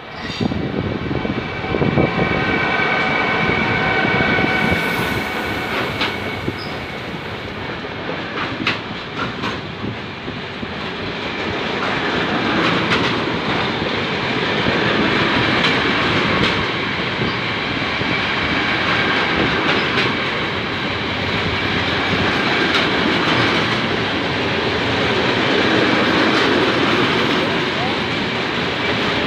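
Freight train passing close by: a steady rolling rumble of wagons with scattered clicks of wheels over rail joints, and a few thin high tones in the first few seconds.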